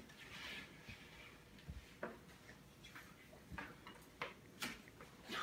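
Faint, scattered clicks and taps of forks and knives cutting pancakes on paper plates.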